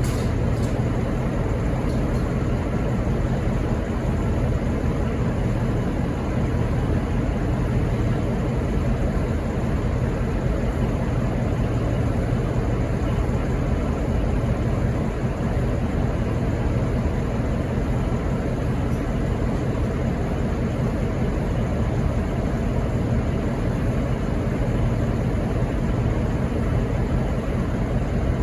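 SSR P class diesel locomotive idling steadily while standing at a signal, a constant low engine hum.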